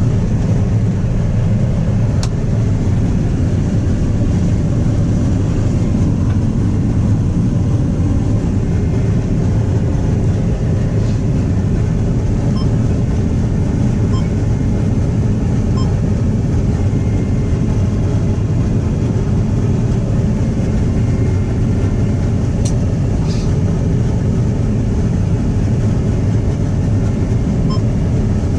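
Combine harvester running steadily while harvesting corn, heard from inside the cab as a constant low drone of engine and threshing machinery. A few faint clicks sound over it.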